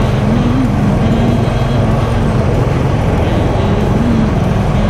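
Motorcycle riding at speed: engine running steadily under a constant rush of wind and road noise.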